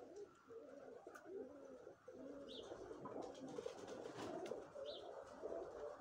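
Domestic pigeons cooing, several at once in low overlapping calls, with two short high chirps about two and a half and five seconds in.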